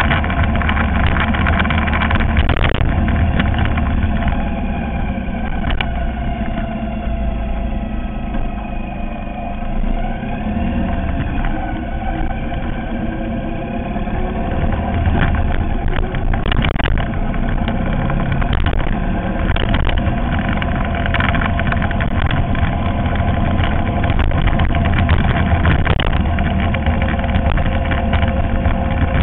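Ural sidecar motorcycle's air-cooled flat-twin engine running while riding at street speed, with wind and road noise. The engine eases off about a third of the way in, then picks up again.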